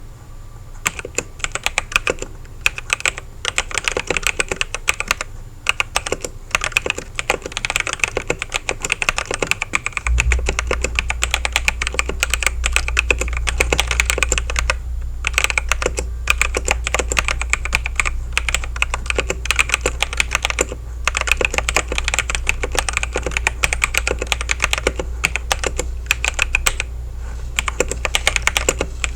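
Continuous typing on a Camiysn MageGee Light84 transparent mechanical keyboard with its stock clear switches, which the owner suspects are the equivalent of brown switches, under clear keycaps: a dense, steady run of key clicks. A steady low hum comes in about ten seconds in.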